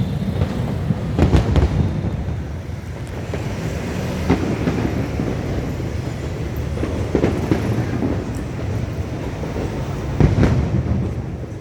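Distant fireworks booming, several dull booms a few seconds apart, over a steady low rumble of street and crowd noise.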